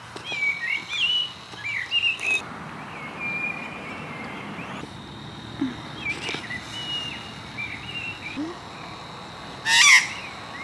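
Australian magpies calling: a run of short warbling chirps, then one loud, harsh squawk just before the end.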